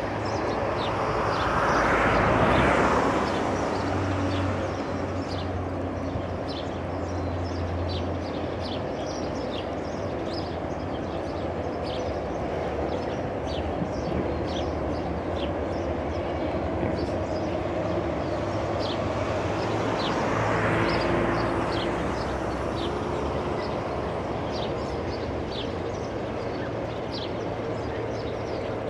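Flying fox trolley rolling along its steel cable: a rumble that swells and fades, once about two seconds in and again about twenty seconds in.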